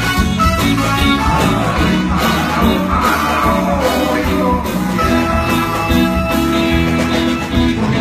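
A live band playing a Batak song, led by strummed acoustic guitars, with a voice singing.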